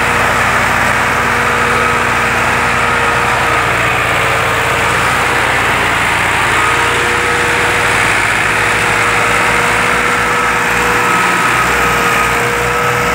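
Massey Ferguson tractor's diesel engine running steadily under load, pulling a heavily loaded sugarcane trailer, with a steady whine over it. In the second half its low beat slows into distinct pulses.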